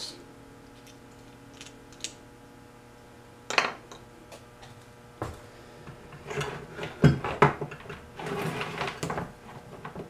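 Wiring harness and plastic connectors being handled on a wooden workbench: a single sharp click about three and a half seconds in, then a run of clicks, knocks and rustling in the second half, the loudest knock about seven seconds in.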